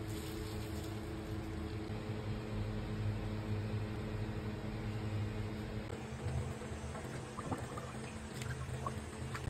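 A steady low hum throughout. From about six seconds in, water sloshes and drips in a steel pot as a whole chicken is lifted and dipped in it.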